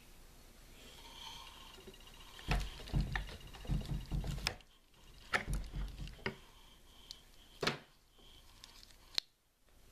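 Clicks and knocks of a steel pin punch pushed against the trigger-guard latch ring of an SVT-40 rifle, with the rifle and its wooden stock shifting under the hands: one cluster of knocks and clicks, a second cluster shortly after, then two single sharp clicks near the end.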